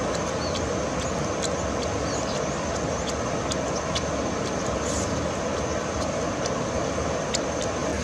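Steady rush of a fast-flowing river, with scattered small sharp clicks and smacks from someone chewing and tearing roasted duck meat.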